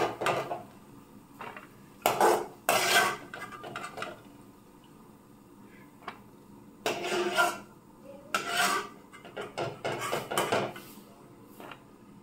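A perforated metal skimmer scrapes and clinks against a metal kadai and a steel plate as fried cashews are scooped out of the ghee and tipped off. The sound comes in several separate bursts with quiet gaps between.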